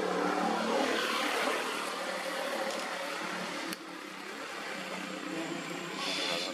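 A motor vehicle going by on the road, heard as an even rushing noise that is strongest over the first few seconds and drops off abruptly about halfway through.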